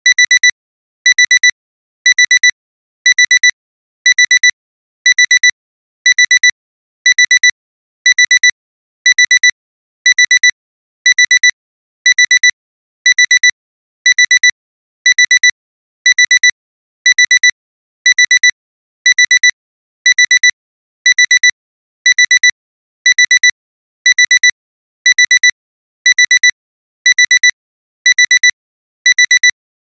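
Alarm clock alarm beeping: high-pitched double beeps, 'beep-beep', repeating about once a second without a break. It signals that the timer has run out.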